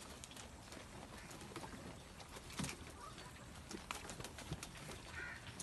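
DDP goat kids feeding at a fodder rack on a brick floor: scattered light clicks and taps of their hooves and the rustle of green fodder. A brief faint high call comes near the end.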